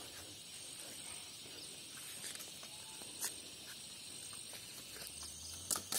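Quiet rural outdoor ambience: a faint hiss with a steady high, thin insect-like whine and a few soft, scattered clicks.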